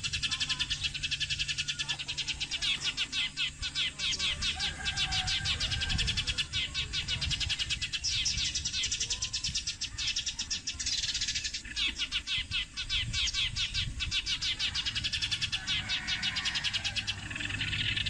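A flock of sparrows chirping, many rapid overlapping high chirps that never let up.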